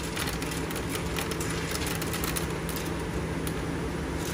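Stone bead milling machine running with a steady motor hum while hundreds of freshly milled stone beads clatter and rattle as they are raked out by hand. The clicking is thickest in the first couple of seconds and again near the end.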